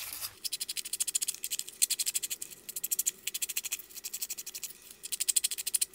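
A small, nearly dried-out ink pad rubbed directly along the edges of paper and fabric scraps: rapid scratchy strokes in several quick runs of about ten a second.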